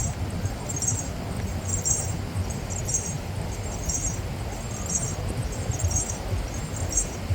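Wind rumbling on the microphone, with a faint high squeaky chirp repeating about once a second.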